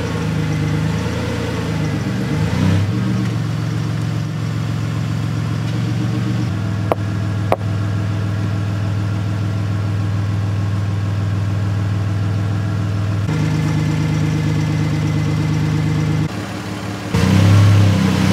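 Vehicle engine idling steadily, its low hum shifting a few times, getting louder in the last second or so as the tyre is driven onto the pot. Two short clicks about seven seconds in.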